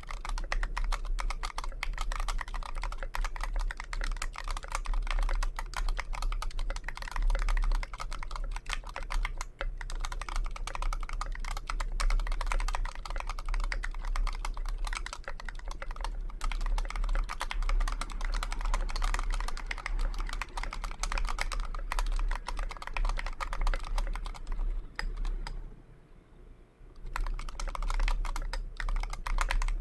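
Fast continuous typing on a KBDfans Pebble mechanical keyboard with JWK FFF switches and SA-profile Ocean Dolch keycaps: a dense stream of key clacks, with a brief pause near the end before the typing resumes.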